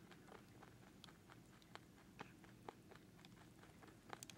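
Domestic rabbit eating, its teeth crunching faintly: irregular crisp clicks two or three times a second, with a quick cluster of clicks near the end.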